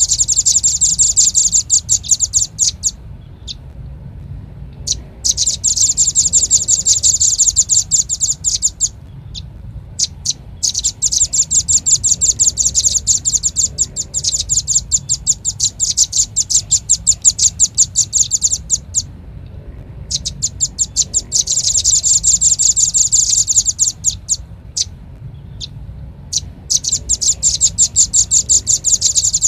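Velvet-fronted nuthatch (rambatan paruh merah) calling, a bird-lure recording: rapid runs of sharp, high chipping notes in bouts of a few seconds, broken by short pauses, over a faint steady low hum.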